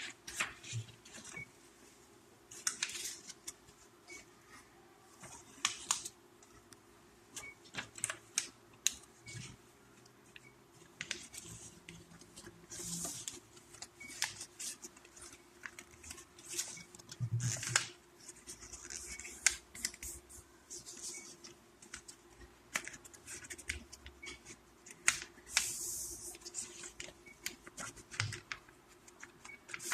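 A sheet of paper being folded into a paper airplane: repeated crisp crackles and rustles as it is handled and creased, with short pauses between folds.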